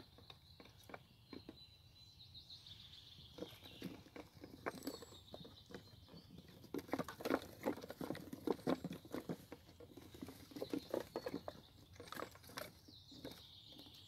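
Small caught songbirds fluttering and hopping inside wooden keeping boxes lined with sawdust: irregular light taps and scrabbling of wings and feet against the box walls, busiest after the first few seconds.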